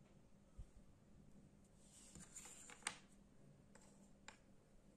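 Mostly near silence, with a few faint clicks and taps of wooden jigsaw puzzle pieces being handled and fitted together on a wooden table, the sharpest about three seconds in.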